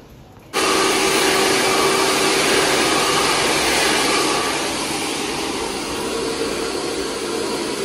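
Handheld hair dryer blowing steadily during a round-brush blow-dry, with a faint steady hum under the rush of air. It starts abruptly about half a second in, drops slightly in level midway, and cuts off just before the end.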